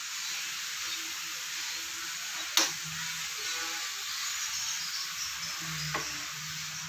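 Steady hiss, with a sharp click about two and a half seconds in and a fainter click near six seconds.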